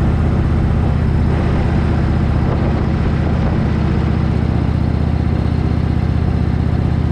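Indian Chief Vintage's air-cooled Thunder Stroke 111 V-twin running at a steady cruise on the road, with wind rushing past.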